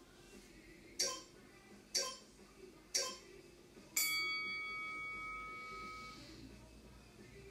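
Electronic timer countdown: three short beeps a second apart, then a longer ringing tone that fades away over about two seconds, the pattern of an exercise interval timer signalling the end of a countdown.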